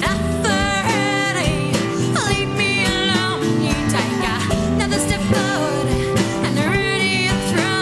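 Background music: a song with a singing voice over sustained instrumental accompaniment.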